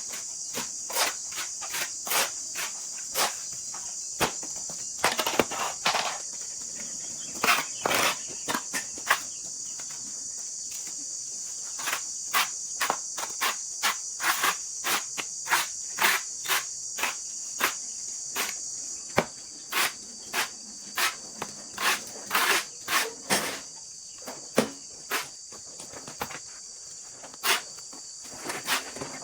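Steady high-pitched insect chorus, crickets or similar, running throughout, with many irregular sharp clicks and knocks over it, at times several a second; the insect drone dips a little about two-thirds of the way in.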